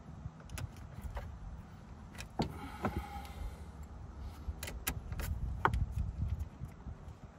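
Metal clicks and clinks of a small wrench and a battery's positive terminal clamp as the clamp is fitted and its nut tightened, with a brief ringing clink about three seconds in, over a low rumble.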